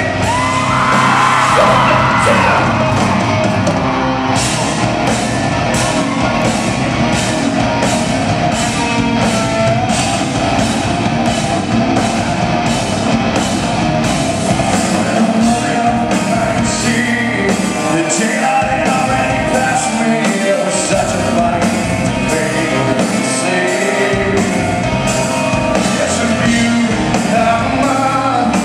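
Live rock band playing in a large hall: a male lead vocal over electric guitar and a drum beat about twice a second, heard through the venue's sound system from the audience.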